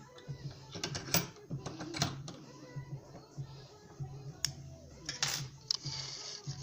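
Sharp metallic clicks and taps from handling a just-picked brass padlock, scattered irregularly, with one longer scrape a little past five seconds in.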